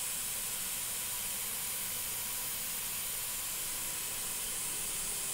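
Steady, unchanging high hiss with no other sounds.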